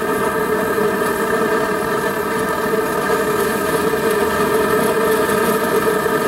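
Steady roar of the gas burner that heats an engine exhaust-manifold prop to around 800 °F, a constant rushing noise with several steady humming tones in it.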